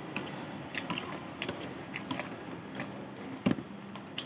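Eating sounds close to the microphone: scattered small clicks and taps, with one louder knock about three and a half seconds in.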